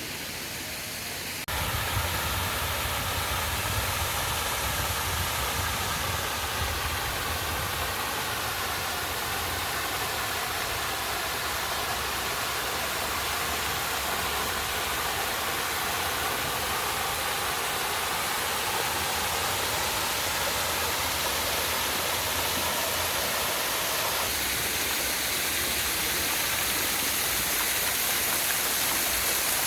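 Steady rushing of flowing water, an even noise with no distinct events, changing abruptly in character about a second and a half in and again near the end.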